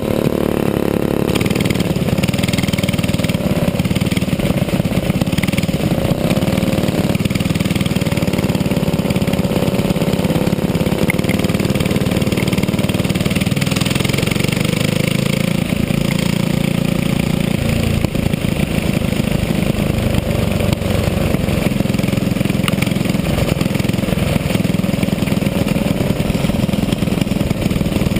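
Racing go-kart engine heard close from the kart itself, running hard at track speed, its note dropping and climbing again several times as the driver lifts off and accelerates through the corners.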